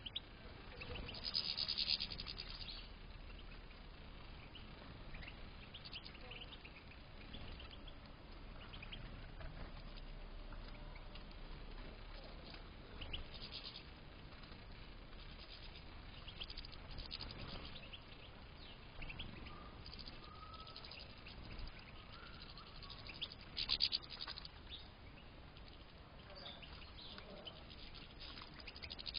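European goldfinches twittering and calling in an aviary, in scattered short high bursts, the loudest about two seconds in and again some five seconds before the end.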